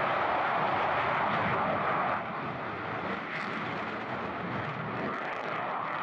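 Fixed-wing aircraft engine noise: a loud, steady rushing roar that drops a step about two seconds in, then carries on.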